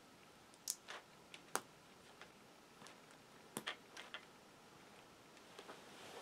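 Faint, scattered clicks and ticks of small plastic Lego pieces being handled and pressed together, about a dozen sharp ticks spread unevenly over several seconds.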